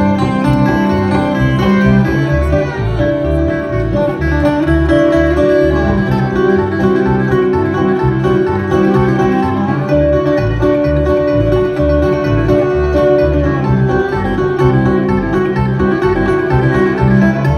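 Bluegrass band playing an instrumental passage without singing: banjo and guitar picking over a steady, pulsing bass beat.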